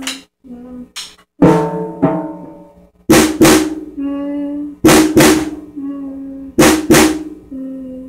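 Drum kit being played in a slow, simple pattern: loud hits, mostly in quick pairs about every one and a half to two seconds, with a steady pitched tone holding between them.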